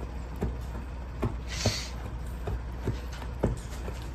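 Kittens eating wet food from a stainless steel bowl: irregular small clicks and knocks of teeth and bowl, over a steady low hum. A brief hissing noise comes about a second and a half in.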